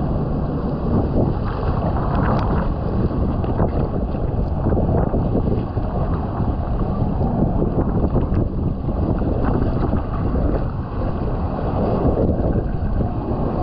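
Inflatable tube riding down a fibreglass water-slide flume: a steady rush of running water and the rumble of the tube on the chute, with wind buffeting the microphone.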